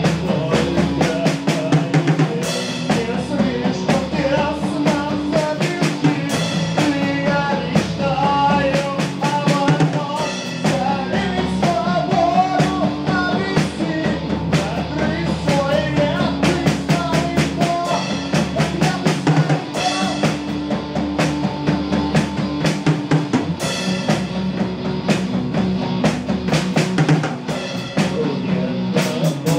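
Electric guitar and drum kit playing rock together live: steady drumming with kick, snare and cymbals under a wandering guitar melody line, with no singing.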